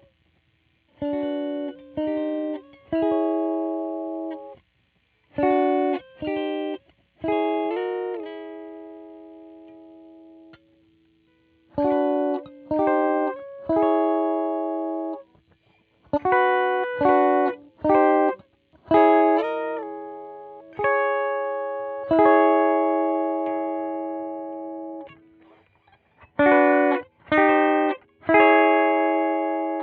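2003 Godin SD 24 electric guitar played in short chord phrases: chords struck two or three at a time, some cut short and some left to ring and fade, with brief pauses between phrases.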